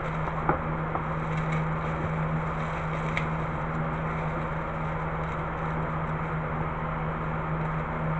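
Bubble wrap rustling and crinkling as it is unwrapped from a spark (ignition) tester, with a few small crackly clicks, over a steady low hum.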